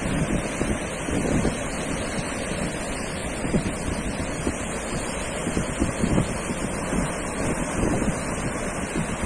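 Sea surf washing steadily onto a sandy beach, with wind buffeting the microphone in gusts.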